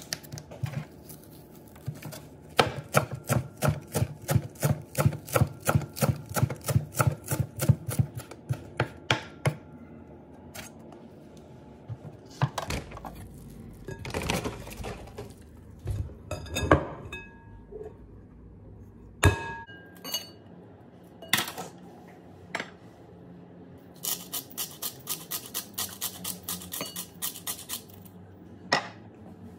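Knife chopping fresh dill on a plastic cutting board: a steady run of quick strokes, about three a second, lasting several seconds. Then a stretch of paper rustling as ground veal is unwrapped, a few sharp knocks, and a run of lighter, quicker taps near the end.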